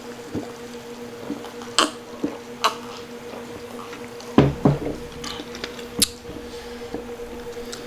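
Close-up eating sounds of crispy pata (deep-fried pork knuckle): wet chewing with a few sharp crunches, and a louder, deeper thump about four and a half seconds in. A steady low hum runs underneath.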